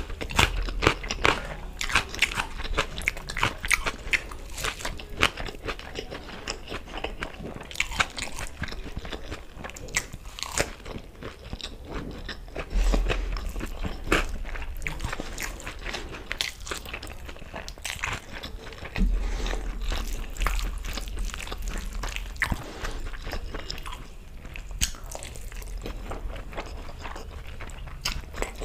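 Close-miked eating sounds of chicken curry and rice: biting and chewing, with crisp crunches and many sharp mouth clicks, busiest in the first few seconds.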